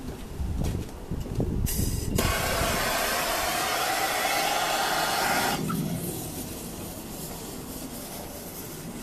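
A handheld gas blowtorch lights with a steady loud hiss about two seconds in, held to a firework fuse, and cuts off about three and a half seconds later. A fainter hiss follows as the lit fuse burns.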